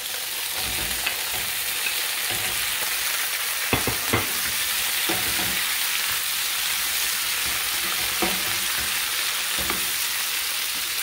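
Tomato wedges, onion and bell pepper sizzling in hot oil in a nonstick frying pan, a steady hiss, while a wooden spatula stirs them, knocking and scraping against the pan a few times.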